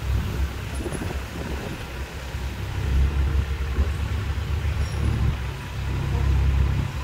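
Semi tractor's diesel engine working under load as it pushes a caboose back over soft sand: a deep, steady engine sound that grows louder about three seconds in.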